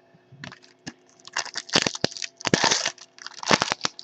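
Foil baseball card pack wrapper being torn open and crinkled by hand, in several ragged rustling bursts.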